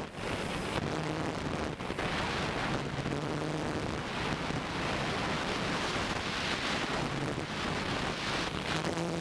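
Wind buffeting the microphone of a GoPro carried under a hexacopter in flight, with a faint hum from the craft's six motors and propellers underneath.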